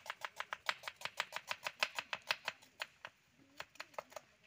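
Knife chopping small onions (shallots) on a wooden chopping board: quick, regular knocks of the blade on the board, about five a second, with a short pause near three seconds in before a few more cuts.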